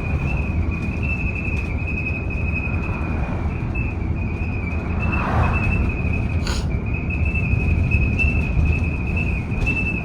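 Cabin of a BYD D8UR DD electric double-decker bus on the move: a steady low road rumble with a thin, steady high-pitched whine, a short rushing swell about five seconds in and a sharp click soon after.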